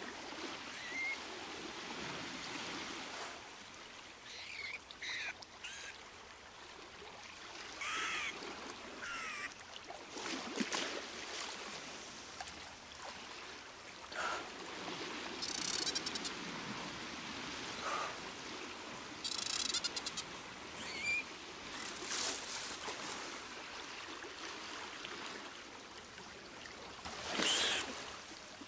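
Water trickling and splashing, with scattered bird calls: short chirps and two fast high trills.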